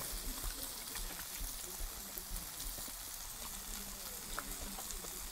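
Beefburger, pineapple rings and banana pieces sizzling gently in a frying pan: a steady soft hiss with scattered small crackles.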